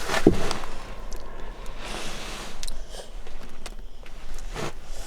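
Chinese diesel heater starting up: a steady low hum with a few sharp clicks, mixed with rustling handling noise.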